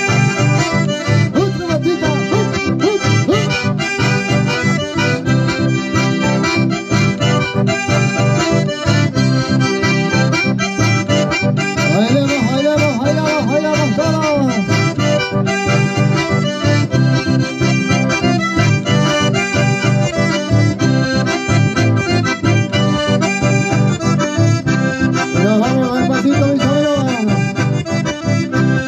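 Live band music: two button accordions, the loudest part, with an acoustic guitar, playing a dance tune with a steady beat.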